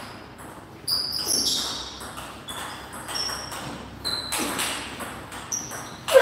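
Table tennis ball being hit back and forth in a doubles rally: a string of sharp knocks of the plastic ball off bats and table, echoing in a large hall, with short high squeaks between the knocks.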